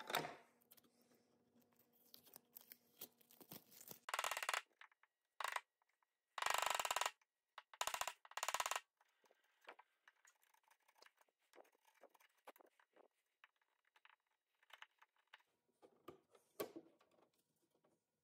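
Several short bursts of rapid mechanical clicking from a small tool or mechanism, the loudest about six to seven seconds in, with faint scattered ticks between them.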